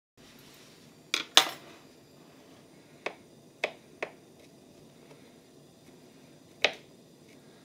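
Knife blade knocking on a wooden cutting board while mincing red onion: six sharp knocks at uneven intervals, the loudest two close together about a second in.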